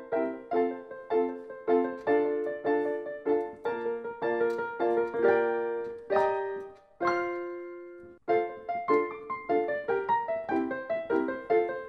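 Background piano music: a gentle repeating pattern of struck notes that pauses on two held chords about six to seven seconds in, then picks up the pattern again.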